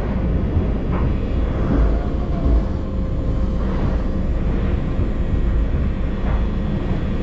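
Running noise of an LHB passenger coach of a moving express train: a steady low rumble of wheels on rails, with a faint steady hum.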